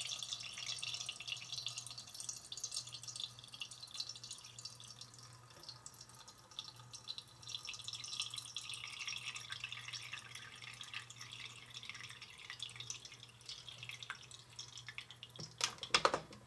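Hot chocolate trickling and dripping from a toy battery-powered coffee maker through its filter into the carafe, a soft patter of many small drips, with a few louder clicks near the end.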